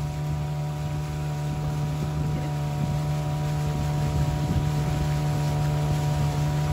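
Small outboard motor running at steady cruising speed with the boat under way, its pitch and loudness holding constant.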